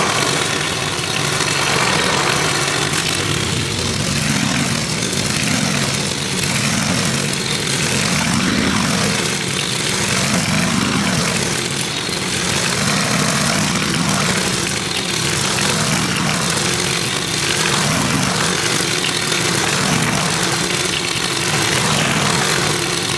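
Petrol lawn mower with a grass-collecting bag, running steadily while cutting grass. Its sound swells and eases about every two seconds as the mower goes back and forth.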